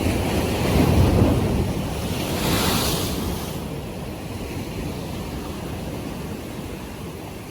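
Sea waves breaking and washing in, with wind buffeting the microphone. The strongest surge comes about a second in and a hissing wash follows a couple of seconds later, then the sound eases off.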